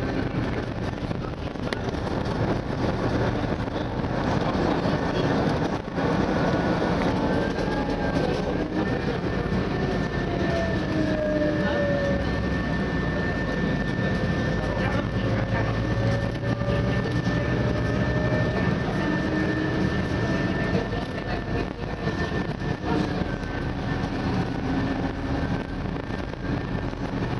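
Cabin sound of a Scania CityWide 12 LF CNG city bus under way. The engine and drivetrain run steadily over road and body noise, with a whine that slowly rises and falls in pitch as the bus's speed changes.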